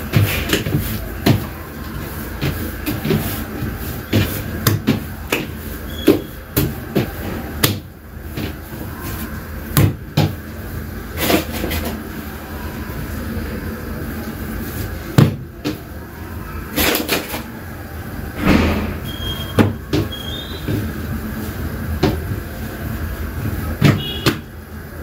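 Chapati dough being kneaded by hand on a wooden counter: irregular knocks and thumps as the dough is pushed and pressed down against the wood.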